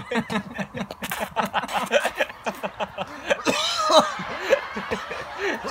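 Several young men laughing hard, with snickering and chuckling in quick bursts, set off while trying to hold water in their mouths. There is a breathy burst of laughter about three and a half seconds in.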